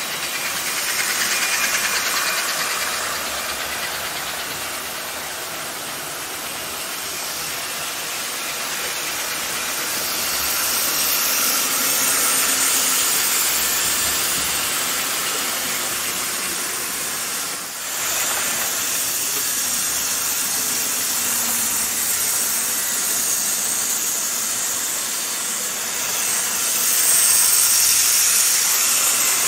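Several Gilbert HO model steam locomotives running at once: a steady whir of small electric motors and gears, with wheels rolling on the track.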